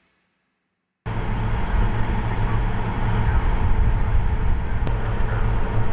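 About a second of silence, then the M1150 Assault Breacher Vehicle's engine and running gear cut in suddenly as a steady, heavy rumble.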